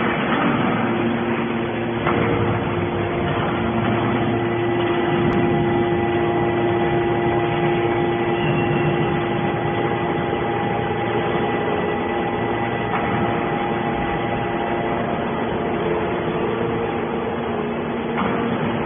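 Hydraulic scrap metal baler running steadily: an even machine hum with a constant whine over it.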